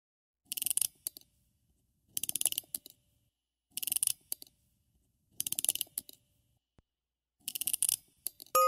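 Mechanical ratchet-like clicking in five short bursts of rapid clicks, one about every one and a half to two seconds.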